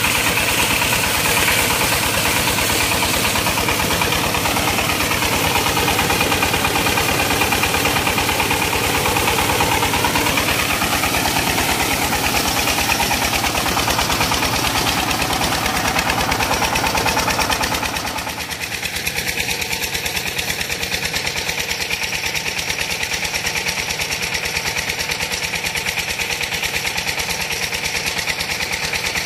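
Fara diesel pump-set engine running steadily with an even rapid beat, driving a centrifugal water pump, with water gushing from the outlet pipe. About 18 seconds in the rush of water fades and the engine's beat is left.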